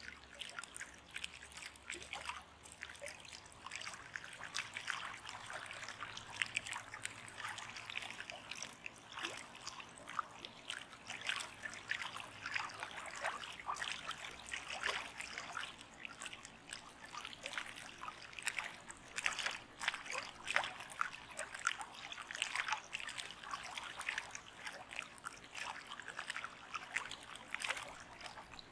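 Water trickling: a dense, unbroken run of small splashes and drips.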